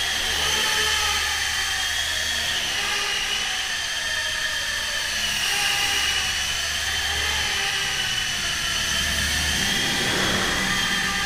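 High-pitched whine of small, fast-spinning electric motors, its pitch slowly wavering up and down, over a low hum.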